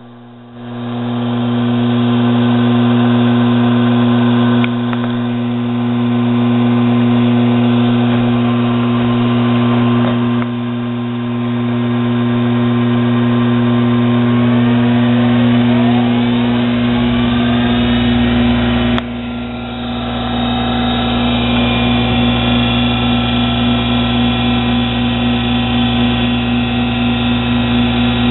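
A 1 HP treadmill DC motor starts up and runs, driving a Nano lathe spindle through a belt. It gives a steady electrical hum and whine. About halfway through, its whine rises in pitch as it speeds up, and the sound shifts a few times.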